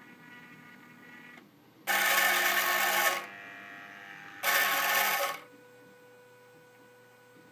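Homemade Arduino-controlled mini drill made from recycled CD-drive and stepper motors running: a faint whine, then two loud buzzing bursts of about a second each, with a softer whir between them, then a low steady hum.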